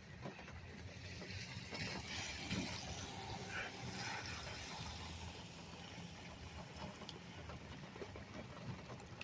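Rain falling, a steady hiss that swells for a few seconds in the middle, with scattered light taps of drops.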